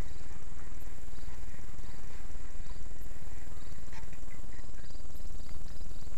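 Insects calling: a steady high whine with short chirps repeating over it, above a low steady rumble. A few faint clicks come about four seconds in.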